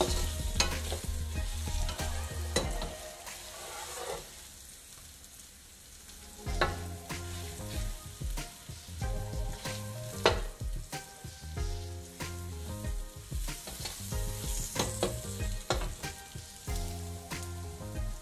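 Raw banana slices frying in oil in a nonstick pan, sizzling, while a slotted spatula stirs and scrapes them, with sharp knocks of the spatula against the pan. The stirring goes quieter for a couple of seconds about four seconds in.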